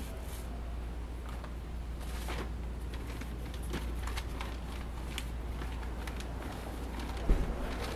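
Plastic shopping bags rustling and crinkling as they are handled and packed into a car trunk, with one sharp bump about seven seconds in, over a steady low background hum.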